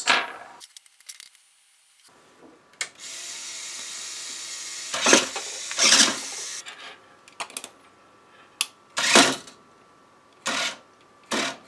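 Hands handling a toy remote control's plastic housing and circuit board: a series of short plastic knocks and rattles. For a few seconds they sit over a steady faint hiss.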